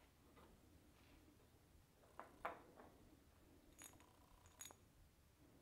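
Near silence: room tone with a few faint, short clicks and taps of engine parts being handled, two a little after two seconds in and two more near the fourth and fifth seconds.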